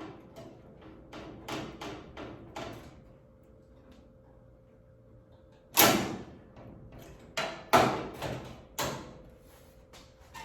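Vise grips and metal pieces being handled and fitted against the car body: a run of light clicks and knocks, a pause, then a loud clunk about six seconds in followed by a few more knocks.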